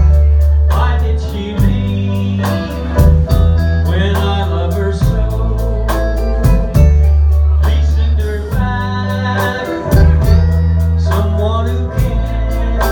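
Live band playing a slow rockabilly ballad: a man singing over electric bass, electric guitar and a Ludwig drum kit, with strong bass notes under a steady drumbeat.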